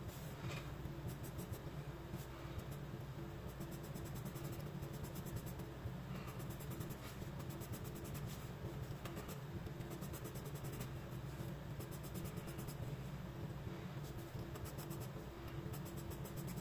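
Pencil scratching on sketchbook paper in runs of quick hatching strokes, over a steady low hum.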